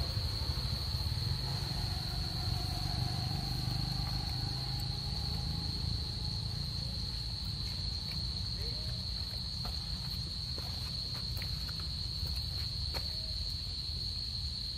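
A steady, high-pitched insect drone, one unbroken tone, over a low background rumble.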